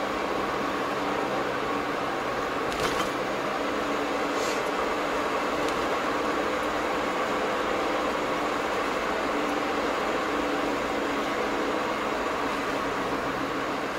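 Steady engine and road noise of a car being driven, heard from inside the cabin, with a brief click about three seconds in and another about four and a half seconds in.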